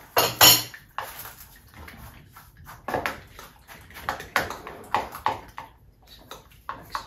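Irregular clatter and knocks of kitchen work: utensils, bowls and pans being handled, with a louder, noisier burst about half a second in.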